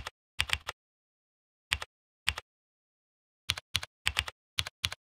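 Computer keyboard keys being tapped in short irregular clusters of two or three clicks, with silence between them.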